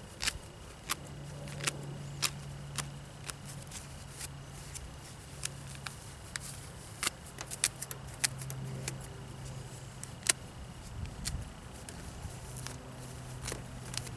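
Feathers being plucked by hand from a shot pigeon: a run of irregular sharp little ticks and snaps. A low hum runs underneath.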